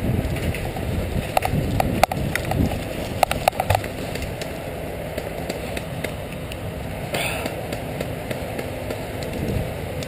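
Footsteps crunching and shuffling through dry fallen leaves, with a run of sharp clicks and snaps in the first four seconds and a brief swish about seven seconds in.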